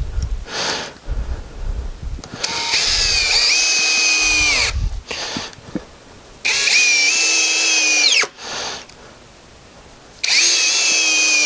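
Cordless drill driving wood screws into a cedar bench board. There are three runs of about two seconds each: the motor whine climbs briefly as it spins up, holds steady while the screw goes in, then cuts off sharply. Knocks and handling noise come before the first run.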